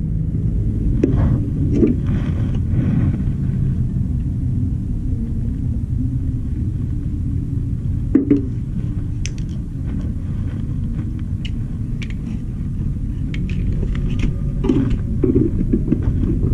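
Steady low rumble with a few light clicks and knocks, the loudest about eight seconds in.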